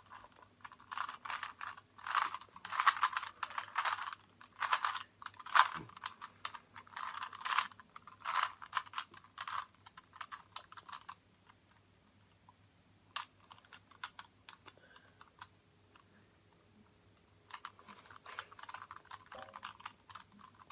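Rubik's cube being turned by hand: quick runs of plastic clicking as the layers are twisted. The clicking stops for several seconds a little past the middle, with only an odd click, then starts again near the end.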